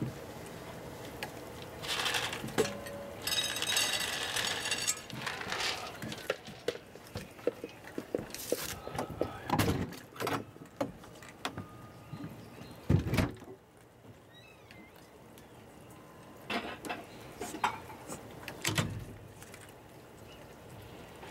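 Dry cat kibble rattling and crunching as a crowd of cats eats from plates, with many small clicks and scattered knocks and one loud bump about 13 seconds in.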